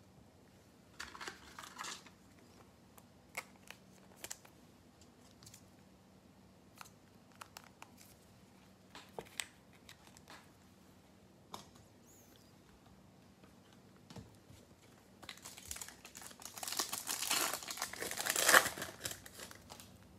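Scattered light clicks and taps of cards and plastic card holders being handled, then, from about fifteen seconds in, a loud spell of crinkling and tearing as a foil Panini Select trading-card pack is ripped open.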